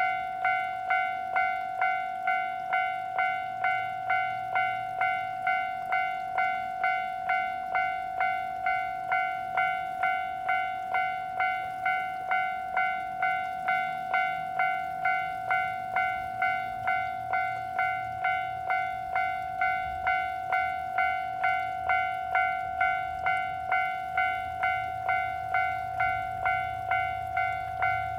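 Level-crossing warning bell of a third-class crossing (alarm, no barriers) ringing steadily, about two strokes a second, signalling that a train is approaching. A low rumble builds in the second half.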